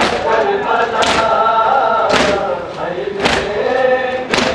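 A crowd of men chanting a Balti noha in chorus, with the sharp slaps of hands striking bare chests in unison (matam) about once a second, four times.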